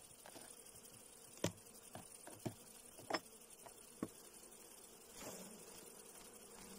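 Honeybees humming faintly around an open hive while a wooden frame is pried loose and lifted out, giving about five light wooden knocks and clicks in the middle of the stretch.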